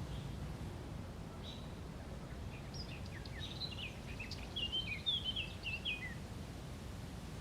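A songbird singing a quick run of short, high chirps for a few seconds mid-way, over a steady low background rumble outdoors.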